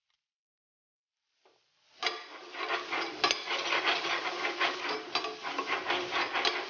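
Spatula stirring and scraping grated cauliflower and spice powders in a frying pan, with a sizzle and frequent sharp clicks of the spatula on the pan. It starts suddenly about two seconds in, after silence.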